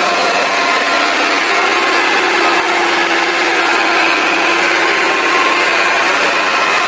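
John Deere 5090E tractor's turbo diesel engine running steadily, a dense even noise with faint steady high tones over it.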